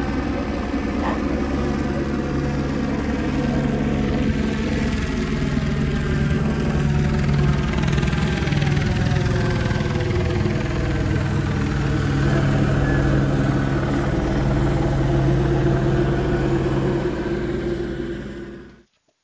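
An engine running steadily, a low drone with slow drift in pitch. It cuts off abruptly near the end.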